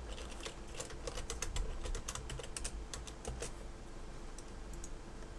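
Typing on a computer keyboard: a quick run of keystrokes for about three and a half seconds, then a few scattered taps.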